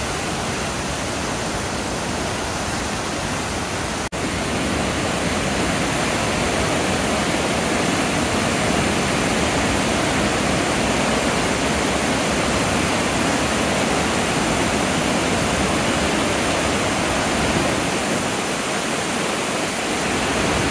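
Victoria Falls: a steady, loud rush of falling water. It breaks off for an instant about four seconds in, then continues slightly louder.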